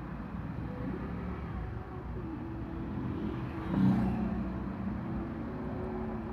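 Road traffic heard from inside a car queued in slow traffic: engines running steadily, with a brief louder engine surge about four seconds in.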